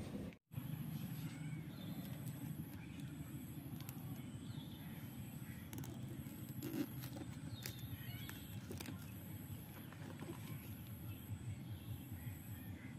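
Steady low outdoor background rumble with a few faint clicks and taps from a shrink-wrapped phone box being handled. The sound cuts out briefly just after the start.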